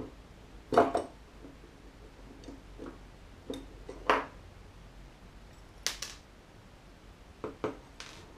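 Scattered clicks and light knocks of the plastic and metal parts of a Heljan O gauge Class 45 motor bogie being handled and set down on the bench. The loudest knocks come about a second in and about six seconds in.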